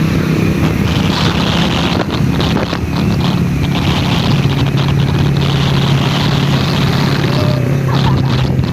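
A vehicle engine running with a steady low drone, mixed with road or wind noise.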